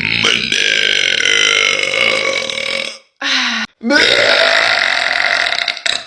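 A woman burping loudly: a long burp of about three seconds, a short one, then another long one of about two seconds.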